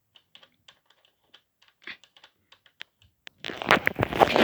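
Remote-control Brum toy car's engine sound: faint, irregular clicking for about three seconds, then a much louder, denser burst of sound near the end. The owner likens it to a triggerfish underwater.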